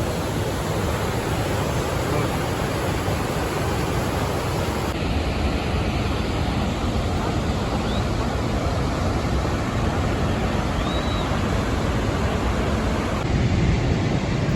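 Steady rushing noise of Niagara Falls' falling water, with wind on the microphone; the sound changes character abruptly twice.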